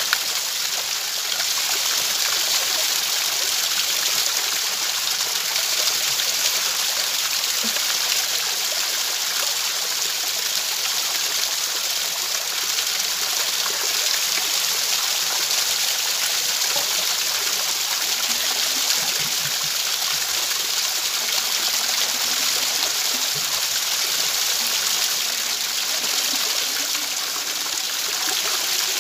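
Water from a small spring falling steadily off a rock ledge and splashing onto the rocks below, a constant hissing splash.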